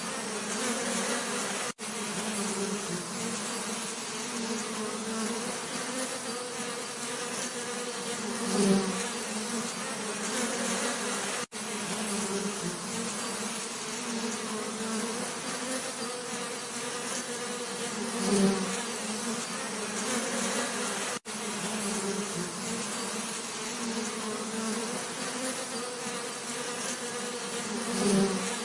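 Bees buzzing steadily, a droning hum with a louder buzz swelling up briefly about every ten seconds, as a bee comes close. The sound cuts out for an instant three times.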